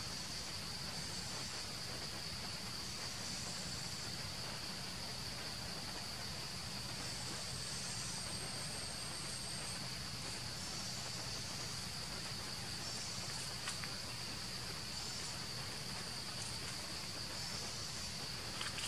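Steady high-pitched drone of insects in the forest, with a few faint clicks, one about two-thirds of the way in and another near the end.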